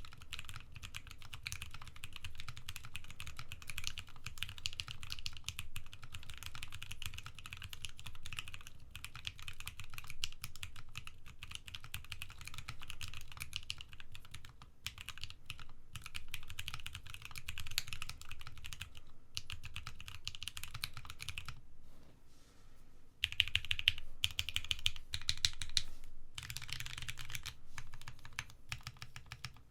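Steady typing on a custom mechanical keyboard: a gasket-mounted Abec13 Adelie with a brass plate and Penguin tactile switches, with no plate ping or hollowness. The typing stops briefly about 22 seconds in, then resumes louder.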